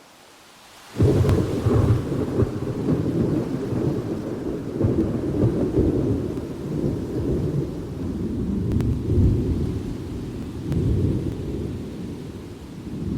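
Thunder: a faint rain hiss is broken about a second in by a sudden thunderclap, which turns into a long, deep rolling rumble that swells and ebbs several times.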